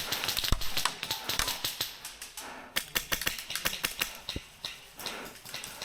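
Airsoft guns firing, a rapid run of sharp clicking shots in quick bursts.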